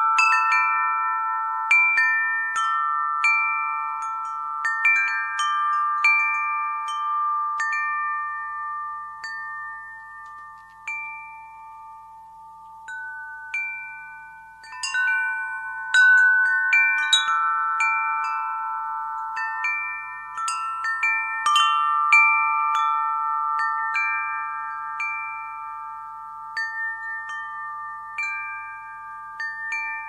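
Wind chimes struck at irregular moments, several clear tones ringing on and overlapping. The strikes thin out around the middle, leaving a few fading tones, then a fresh cluster of strikes comes in.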